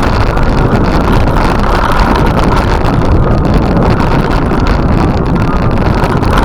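Loud, steady wind rush buffeting the microphone, with a low rumble underneath and no engine tone.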